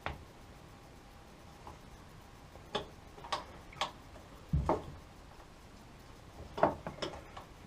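Metal clinks and knocks of a spanner working on a tap's 21 mm headgear nut as it is undone: a few separate sharp clicks, a duller knock about halfway through, and a quick cluster near the end.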